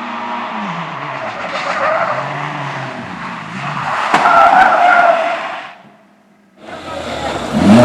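Race car engine revving up and down through gear changes, with tyres squealing for about a second around four seconds in. The sound drops away abruptly near the end, then another loud engine comes in.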